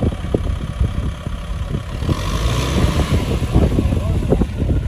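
Kubota M6040 tractor's four-cylinder diesel engine running hard under load as the tractor labours, stuck in deep sand, with a rise in hiss and effort about halfway through.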